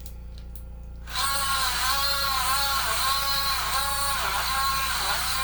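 Small portable blender cup switched on about a second in, its motor whining with the pitch dipping and recovering about twice a second as the blades churn fruit and ice. The owner says the ice is a little strong for it.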